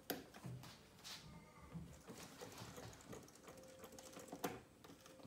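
Faint clicking and light rattling from a home-made earthquake-simulator shake table shaking a wooden-stick model building, with a sharper click right at the start.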